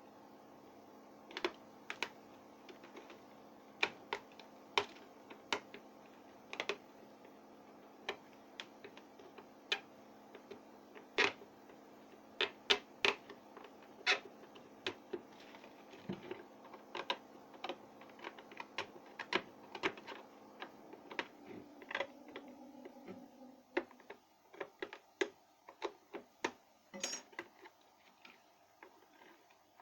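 Irregular sharp clicks and taps, as of small tools and parts being handled, over a steady hum that stops about 24 seconds in.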